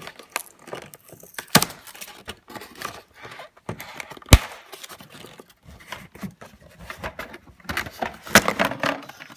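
Hands unpacking a plastic toy car from its cardboard box: scattered rustling and sharp clicks and snaps of plastic and cardboard. The loudest snap comes about four seconds in, and a busier run of clicking and rustling comes near the end.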